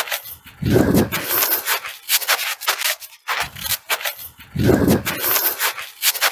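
Rubbing and scuffing handling noise from a microphone carried by someone walking, with footsteps on the road. Two heavier low rumbles come about a second in and again about four seconds later.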